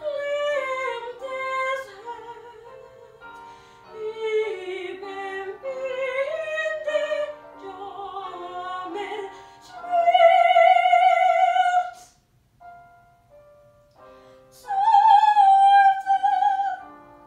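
Female classical voice singing in operatic style with vibrato, with piano accompaniment. She holds two long high notes, about ten and fifteen seconds in, and the piano sounds alone briefly between them.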